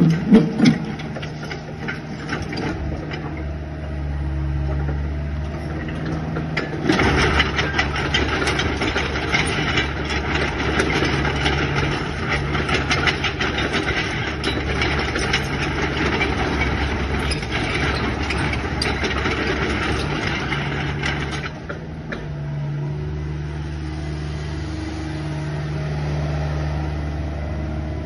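Mini excavator's diesel engine running steadily, growing louder with rattling and clatter about a quarter of the way in, then dropping back to a quieter, even run about three-quarters of the way through.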